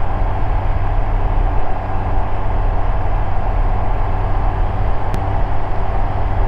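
Ikarus C42B microlight's engine and propeller droning steadily in cruise flight, heard from inside the cockpit, with no change in pitch.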